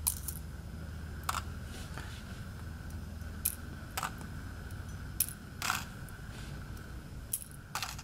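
Small brass lock pins being pushed out of a padlock's plug and dropping onto a folded paper tray: about eight light, sharp clicks at irregular intervals.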